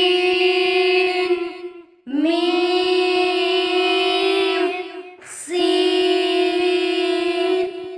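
A high voice chanting three long drawn-out syllables, each held at a steady pitch for two to three seconds: Arabic letter names recited in a sing-song Qur'an-reading style.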